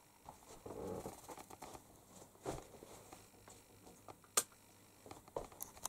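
Quiet footsteps, shuffling and small knocks of a person moving through a small room and settling at a desk, with one sharp click about four and a half seconds in, the loudest sound.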